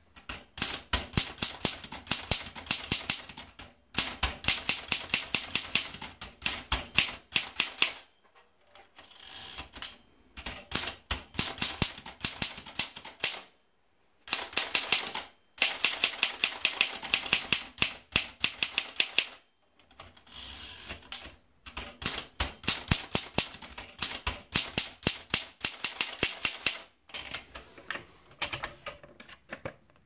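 Mercedes Prima manual typewriter being typed on: quick runs of sharp clacks as the keys drive the typebars against the paper, several a second, broken by short pauses.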